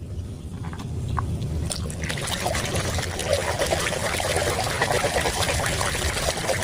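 Water pouring and trickling over a toy being washed, getting busier and splashier about two seconds in.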